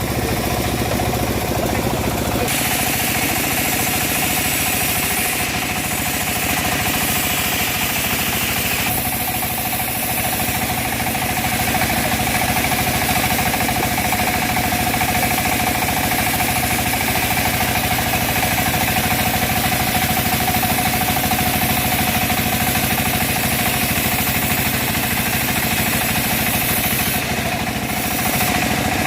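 Homemade bandsaw mill running steadily while sawing a teak log, with a steady machine hum and a hissing of the blade in the wood that gets louder about two and a half seconds in.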